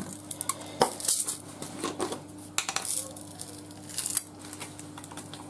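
Scattered light clicks and clinks from a jar of sugar sprinkles being handled and shaken over cupcakes, with a low steady hum underneath.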